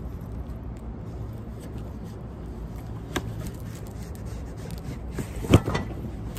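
Cardboard scraping and rubbing as the lid of a tall shipping box is pulled off, with a sharp knock about five and a half seconds in. A steady low rumble runs underneath.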